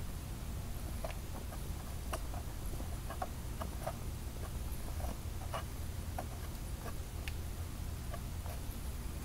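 A cat working at a plastic box with a clear plastic lid, trying to get it open: irregular light clicks and taps on the plastic, several a second, over a low steady hum.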